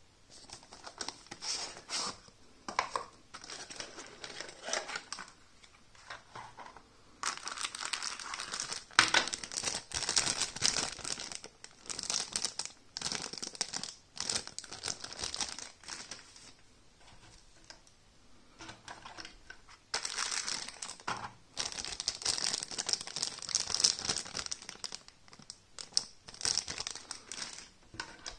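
Thin clear plastic bags crinkling and rustling in the hands, in stretches of several seconds with quieter gaps between, along with the handling of the cardboard box and plastic tray of the packaging.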